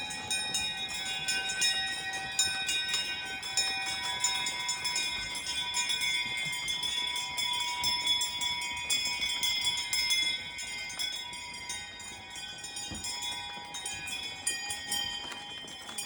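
Sleigh bells on a horse's harness jingling steadily as a horse-drawn sled moves along.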